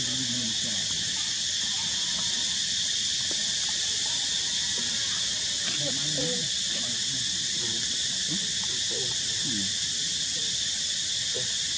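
Steady high-pitched drone of insects, unbroken throughout.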